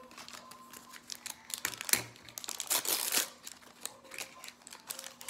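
Toy packaging crinkling as it is handled and opened: an irregular run of crackles, loudest about two to three seconds in.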